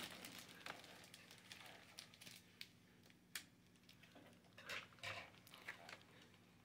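Near silence with faint rustling and small clicks from hands picking at a ribbon and gift tag on a cellophane-wrapped basket; one sharper click about three and a half seconds in.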